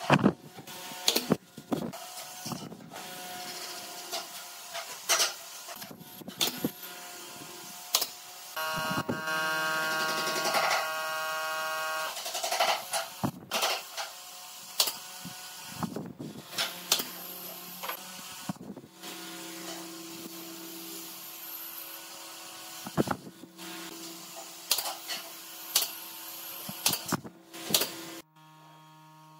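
Pneumatic brad nailer firing again and again at irregular intervals, sharp cracks as it drives brads into pine table legs and finials. A steady hum with several tones runs for a few seconds near the middle.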